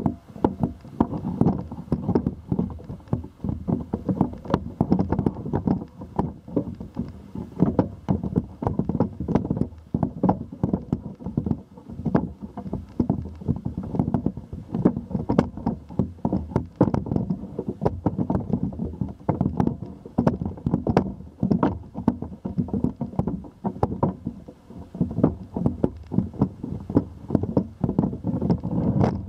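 Handling noise from a camera on a telescoping camera pole: a constant run of irregular knocks, clicks and rattles as the pole is held aloft and swung over the roof.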